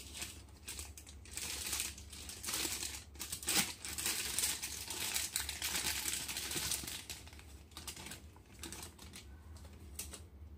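Thin clear plastic bag crinkling and crackling as a small PVC figure is worked out of it by hand, loudest in the middle and dying down towards the end, with a single sharper click near the end.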